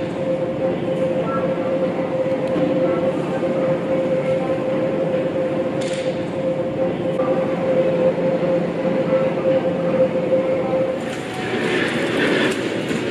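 Steady mechanical hum with a constant mid-pitched whine running through it. About eleven seconds in, the whine stops and a busier, brighter background takes over.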